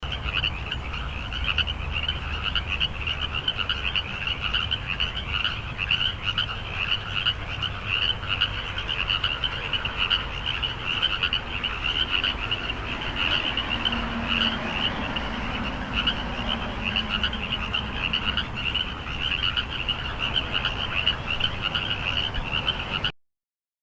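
A dense chorus of frogs croaking, many rapid pulsed calls overlapping without a break, cutting off suddenly near the end.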